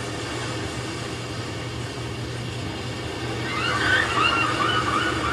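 Steady appliance hum. A wavering, whistle-like high tone joins about three and a half seconds in.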